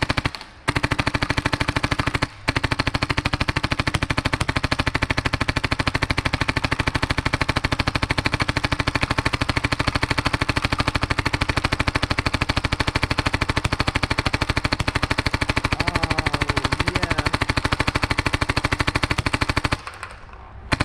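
Tippmann X7 Phenom paintball marker firing rapidly in a long, unbroken string of shots. There are two brief pauses in the first few seconds, and the firing stops about a second before the end. It is emptying a 450-round hopper with no paintball breaking, a sign the rebuilt marker is running smoothly.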